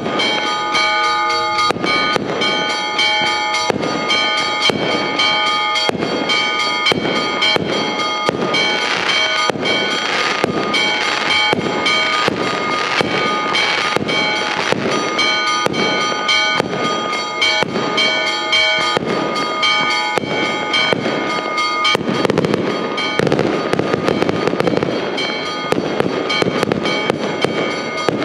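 Fireworks display: aerial shells going off in a fast, continuous string of bangs and crackles. Church bells ring along with the bangs and stop about 22 seconds in, leaving the fireworks alone.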